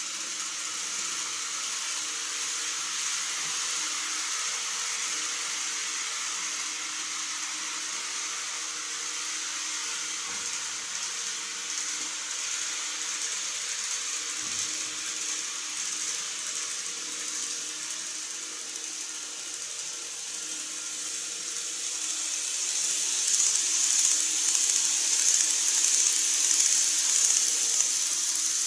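KATO N-scale model train running on track: a steady high hiss of motor and wheels that grows louder over the last several seconds as a train approaches and passes close by.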